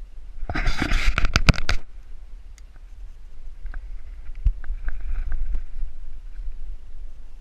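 Gloved hands handling a steel Conibear body-gripping trap: a burst of rustling and metal clattering lasting about a second, starting about half a second in, then scattered light clicks of the trap's metal parts.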